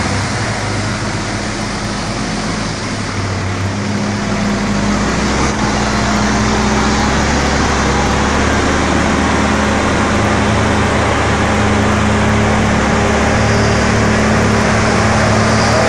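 Heavy diesel truck engine working hard under load, running steadily, its low drone growing stronger about four to six seconds in and a little louder toward the end. The truck is towing a log-laden truck by cable through mud.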